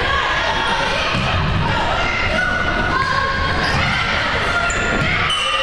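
Volleyball rally on a hardwood gym floor: ball contacts and players' footfalls thudding under a steady din of players and spectators calling out and cheering.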